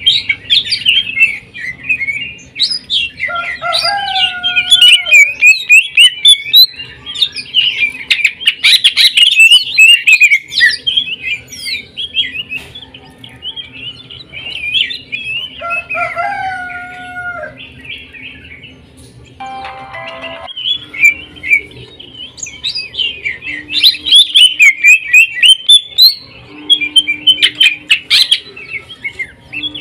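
Cucak ijo (green leafbird) singing a fast, dense stream of sharp high chattering notes in loud rapid bursts, the rattling 'sewing-machine' delivery. Twice a lower slurred falling whistle cuts in, and the chatter eases off for a few seconds past the middle.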